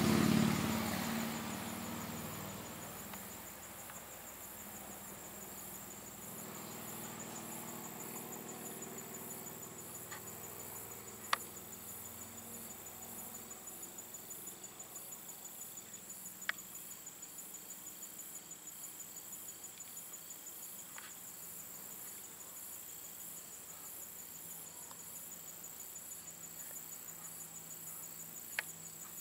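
Steady high-pitched insect chorus, an even pulsing trill typical of crickets in an autumn field. A passing vehicle fades away in the first few seconds, and there are three sharp clicks.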